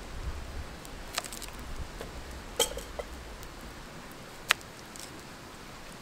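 Kitchen knife slicing a carrot on a metal cutting board: sharp, separate clicks of the blade striking the board, about seven of them, irregularly spaced, the loudest about four and a half seconds in.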